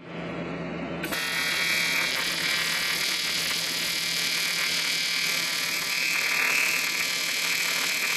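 Handheld electric power tool running steadily at high speed, the sound of a grinder or rotary tool working on metal. It starts abruptly about a second in.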